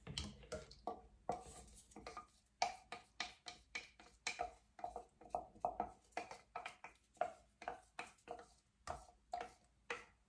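Wooden stir stick tapping and scraping against plastic cups, about two to three light knocks a second, while thick GAC 800 acrylic medium is worked out of a measuring cup into a mixing pitcher.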